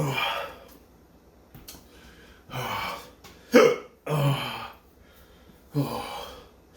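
A man hiccupping: four sharp hics about one to three seconds apart, with heavy breaths between them. The hiccups are brought on by the capsaicin in the super-hot chili peppers he has just eaten.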